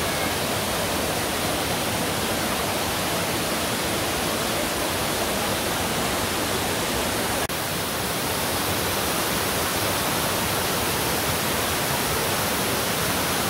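Steady rush of a waterfall, many thin cascades spilling down a mossy cliff into a rocky river: an even, unbroken hiss of falling water. A faint click with a momentary dip about halfway through.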